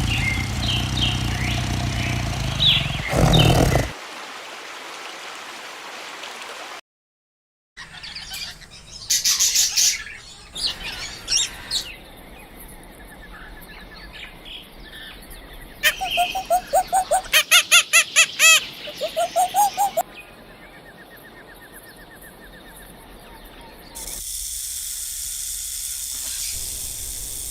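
A run of short animal-sound clips joined by cuts: chirping bird calls, a series of about ten repeated pitched animal calls, and a hissy outdoor stretch, with about a second of silence between two clips.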